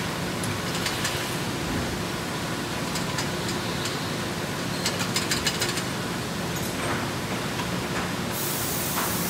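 Perfecta BASA pile-handling machine running steadily with a low hum. A quick run of mechanical clicks comes about five seconds in, and near the end a loud hiss of compressed air starts suddenly.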